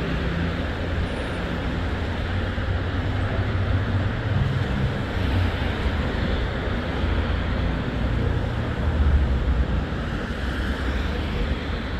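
Steady road-vehicle noise with a low rumble that swells and fades a little.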